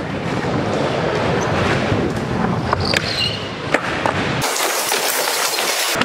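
Skateboard wheels rolling on a smooth concrete skatepark floor: a steady rumble with scattered sharp clicks and knocks from the board. Near the end the rumble drops out for about a second and a half, leaving only a thin hiss.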